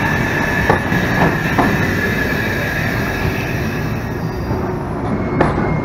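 Empty container flat wagons of a freight train rolling past on the rails: a steady rumble of wheels on track, with a few knocks at the rail joints and a thin steady wheel squeal that fades out after about two seconds.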